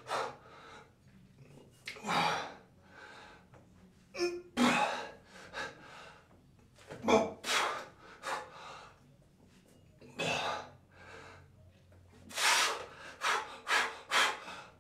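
A man breathing hard and sharply through heavy one-arm dumbbell rows, with a forceful exhale or gasp on each rep. The breaths come closer together near the end as the set gets harder.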